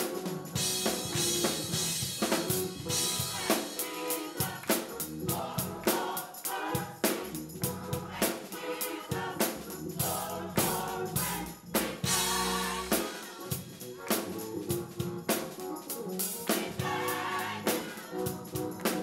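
Gospel music: a drum kit with snare and bass drum keeping a steady beat under a choir singing.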